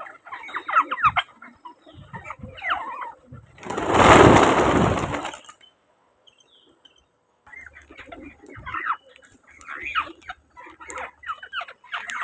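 Birds chirping and calling in quick short notes, broken by a loud rush of noise about four seconds in and then a brief silence before the calls resume.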